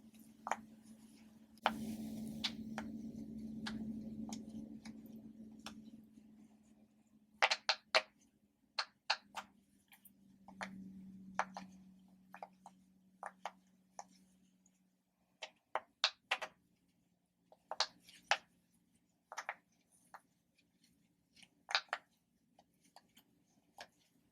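Sea-animal popper toys being pressed and popped: sharp, irregular pops and clicks, some in quick clusters of two or three. Under them is a faint steady hum, and there is a stretch of hiss a couple of seconds in.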